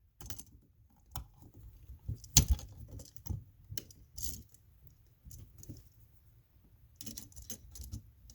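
Scattered small clicks, taps and light metallic rattles of a wire end being bent and hooked onto the screw terminal of an electrical outlet, with one sharper knock about two and a half seconds in.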